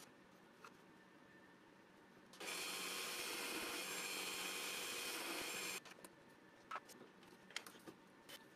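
Drill press boring a hole in a small hardwood block: a steady running-and-cutting noise starts about two seconds in, lasts about three seconds and stops suddenly. A few light knocks of the wood piece being handled on the drill press table follow.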